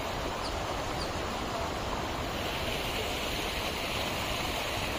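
Steady rushing of flowing water from a hill stream.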